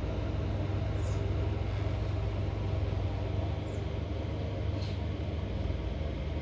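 A Corvette C6 Z06's 7.0-litre V8 running steadily at an even engine note, heard after the new differential mounts are fitted.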